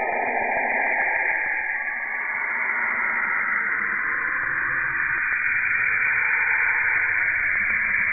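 Space sound recording: radio-like static hiss. Under the hiss a band of noise slides down in pitch over the first few seconds, and a low rumble joins about halfway through.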